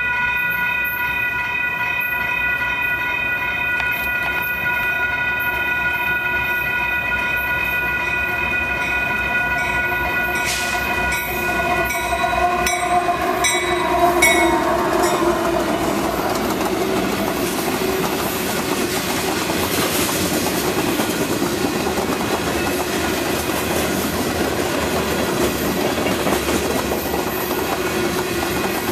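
Union Pacific diesel freight train passing a grade crossing. The crossing bell rings steadily as the locomotives approach, and the sound is loudest as they pass about halfway through. After that comes the steady rumble and clickety-clack of covered hopper cars rolling by.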